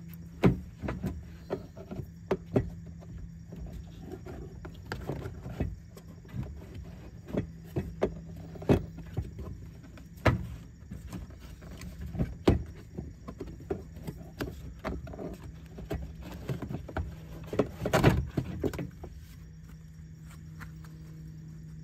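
Plastic air box clips and housing on a 2021 Subaru Forester being unclipped and handled, giving scattered clicks and knocks, with a louder run of rattling near the end as the air filter is worked out of the box.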